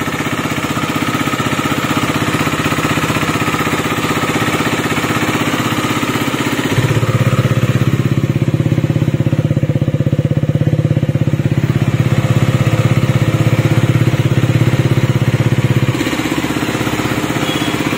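KTM Duke 250's single-cylinder engine idling steadily after a new timing chain and camshafts, with the earlier engine noise now gone. About seven seconds in the sound turns louder and deeper, then drops back about nine seconds later.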